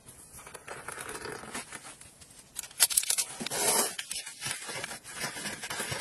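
A spoon stirring and scraping in a stainless steel camping cup, with rustling and a few sharp clicks about halfway through.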